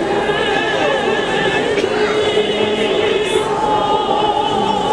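Mixed school choir of boys and girls singing unaccompanied in several parts, holding long sustained notes.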